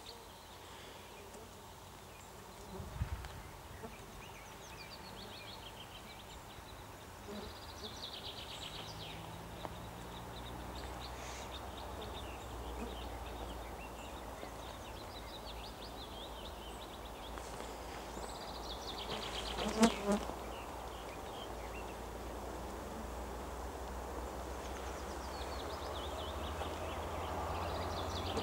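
A swarm of gnats and flies buzzing close around the microphone, with a sharp short crackle about two-thirds of the way through. Under it a low rumble grows steadily louder through the second half: the distant suburban train approaching behind its diesel locomotive.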